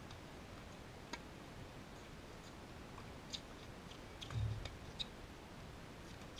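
Faint, distant tennis rally: a few sharp clicks of racket strikes and ball bounces spaced a second or two apart, with a brief low thump about four seconds in.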